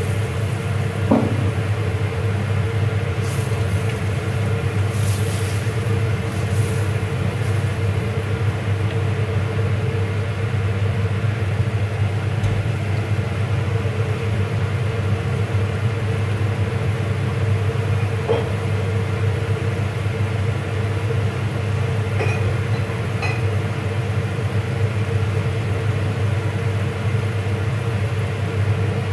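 Steady low rumble of a kitchen, with a steady hum on top, while a pan cooks on a gas hob. A wooden spoon knocks lightly against the steel pan about a second in, again around eighteen seconds in, and twice more a little later.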